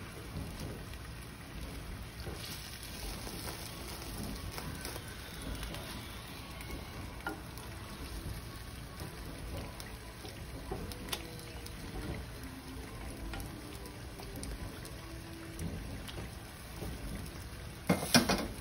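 Marinated lamb sizzling steadily in a clay tagine over a gas flame, with a few light clicks of metal tongs against the pot. Two louder knocks come near the end.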